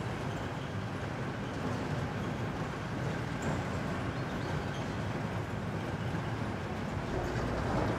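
Pickup truck towing a trailer loaded with side-by-sides on the road: a steady rush of engine and tyre noise that grows a little louder toward the end.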